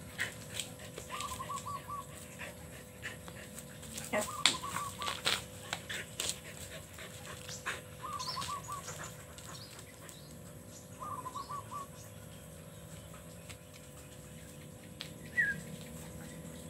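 An animal's short rapid call of about five quick notes, repeated every few seconds, with scattered sharp clicks and knocks in between.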